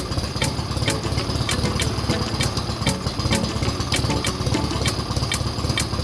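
Freshly rebuilt piston airplane engine idling steadily on its first run after the rebuild, with sharp clicks about twice a second.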